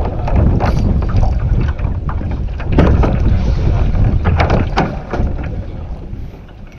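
Strong wind buffeting the microphone on a kayak in choppy water, with water lapping and several short sharp knocks or splashes against the hull. It fades toward the end.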